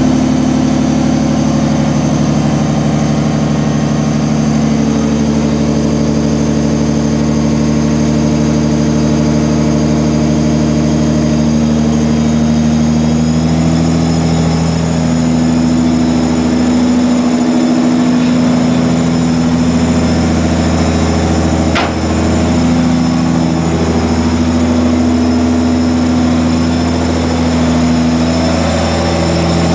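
1996 Ford Probe GT's 2.5-litre KLZE V6 engine running steadily at low revs, its pitch shifting slightly partway through, with one sharp click about two-thirds of the way in. The owner says this engine misfires and backfires out of the exhaust when revved, and suspects its old, melted and warped spark plug wires.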